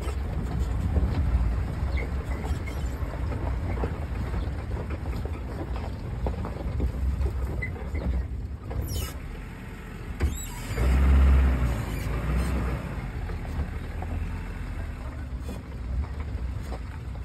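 Car engine running as the car creeps slowly along a dirt track, with a louder low swell about eleven seconds in.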